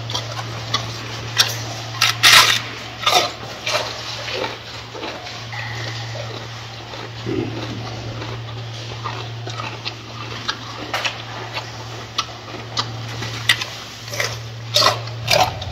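Gorilla chewing lettuce: irregular crunches and mouth smacks, coming thickest about two to three seconds in and again near the end, over a steady low hum.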